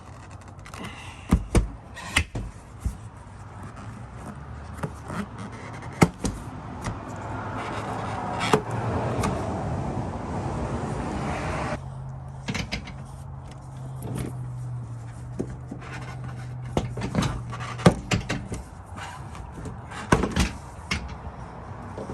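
Plastic rear trim panel being pulled off a Toyota Land Cruiser 100 by hand: scattered clicks, knocks and snaps of its plastic retaining clips and the panel being handled. In the middle a rushing noise swells and cuts off suddenly, followed by a low steady hum for several seconds.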